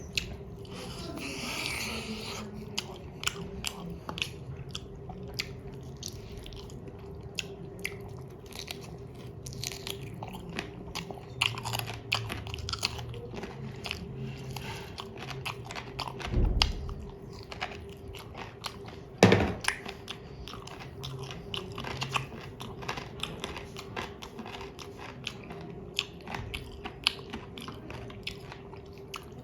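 Close-up eating sounds: a person chewing and biting into chicken biryani, with a steady run of wet mouth clicks and small crunches. Two louder knocks stand out, about 16 and 19 seconds in, over a faint steady hum.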